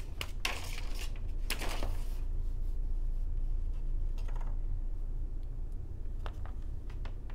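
Hands handling paper and chipboard on a cutting mat: scattered light taps and clicks and a couple of short paper rustles, over a steady low hum.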